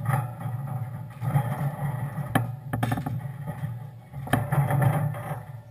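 Recorded gunshots from a gun-dog conditioning recording played through a speaker: several sharp bangs, roughly a second apart, over a steady low hum.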